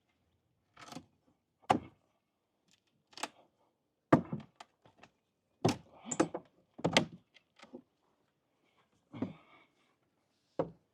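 Irregular wooden knocks and thuds, about nine in ten seconds, as old deck boards are struck and pried loose.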